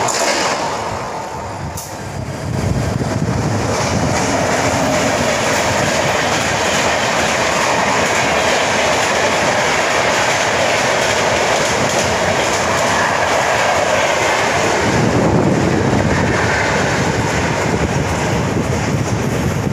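Passenger train running along the track, heard from on board: a steady rumble and rattle of wheels on the rails, dipping briefly about a second or two in.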